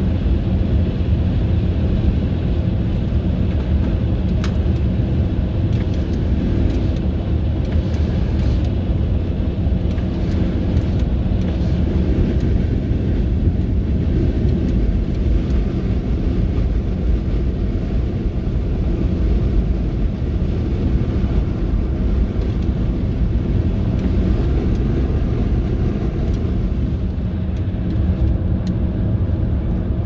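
Steady road noise inside the cabin of a 1999 Ford Taurus cruising at highway speed: a low, even rumble of tyres, engine and wind that stays level throughout.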